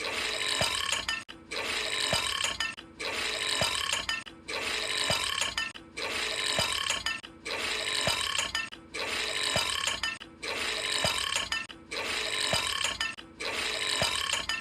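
A big burp sound repeated over and over, about ten times, one every second and a half, each lasting a little over a second with a short gap between. The repeats look alike, like the same recorded burp played again and again.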